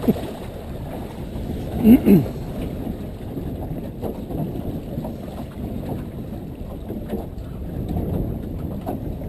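Steady low rumble and wash aboard a boat at sea, with wind buffeting the microphone. A short voice sounds about two seconds in.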